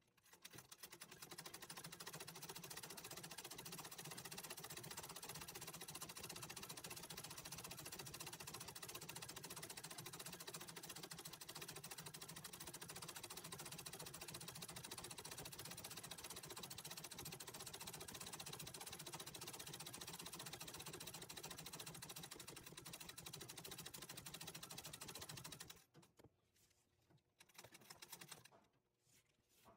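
Antique treadle sewing machine stitching fast and evenly, a rapid needle clatter of free-motion embroidery stitches filling in a leaf. It stops about four seconds before the end, with a short burst of stitching near the end.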